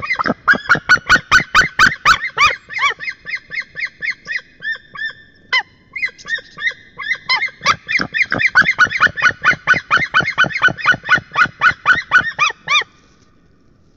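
A pair of white-tailed eagles calling together in a loud duet: a long run of rapid yelping notes, about five a second. There is a brief lull about five seconds in, then the calls build again and stop abruptly near the end.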